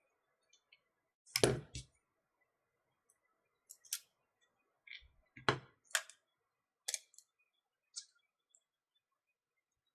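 Small hand tools and tiny metal watch parts clicking and tapping on a workbench during the teardown of a Garmin Fenix 5, a handful of separate sharp clicks, two of them heavier knocks.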